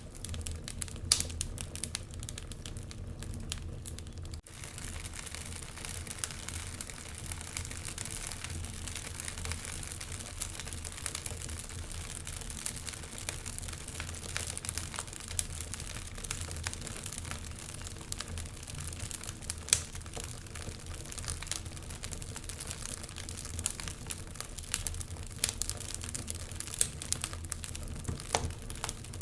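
Wood fire crackling in a fireplace: a steady stream of small snaps and pops over a soft hiss, with a few louder pops, one about a second in and one near the middle.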